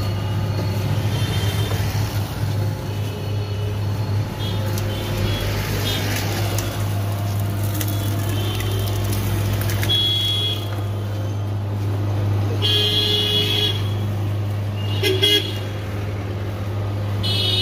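Electric sugarcane juice machine (Jeeva Mini) running with a steady low hum as its rollers press cane. Vehicle horns honk a few times in the second half.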